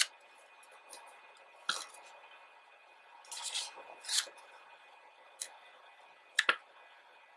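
Pages of a large, heavy photobook being turned by hand: a soft paper swish as a page sweeps over, with a few sharp taps and clicks of the hands and book, the loudest a quick double tap near the end.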